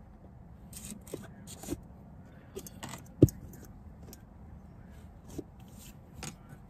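Rustling and scattered clicks and knocks as a blackout curtain, held up with binder clips, is pulled down from an SUV's rear side window. One sharp knock about three seconds in is the loudest sound.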